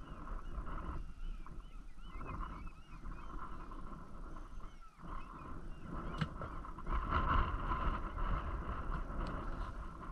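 Wind rumbling on the microphone, with a distant flock of birds calling and chattering; the thin, wavering calls are clearest in the first few seconds.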